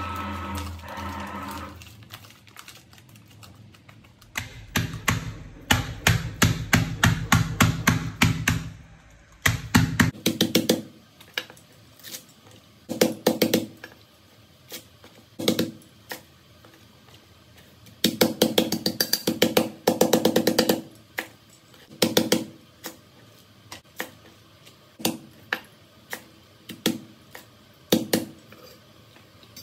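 Cleaver chopping water spinach stems on a wooden cutting board: fast runs of chops, about four or five a second, with scattered single chops between them. A steady hum fills the first two seconds.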